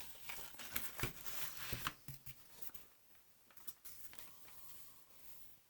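Small model-kit parts being handled and fitted by hand: light rustling and a string of small clicks and taps, busiest in the first two seconds, then only a few faint clicks.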